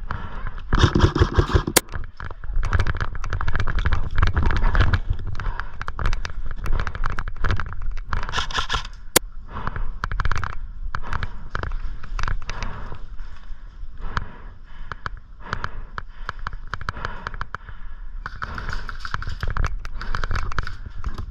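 Airsoft guns firing, a dense crackle of rapid shots and bursts, with two sharper snaps about two seconds in and about nine seconds in.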